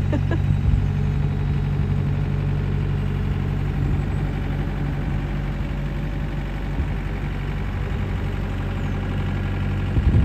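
Komatsu PC75 mini excavator's diesel engine running steadily at an even pitch, with a few light clicks about half a second in.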